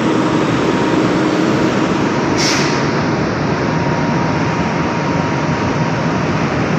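Loud, steady industrial machinery noise with a faint steady hum, and a short hiss about two and a half seconds in.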